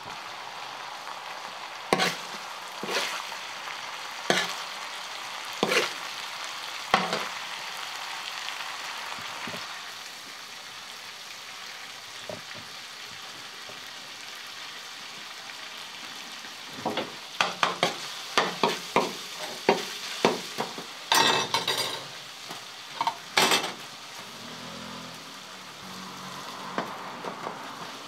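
Meat frying in a wide, shallow steel tantuni pan, a steady sizzle under sharp metallic knocks and scrapes of utensils and hands against the pan. The strikes come singly about once a second at first, then in a quick flurry past the middle.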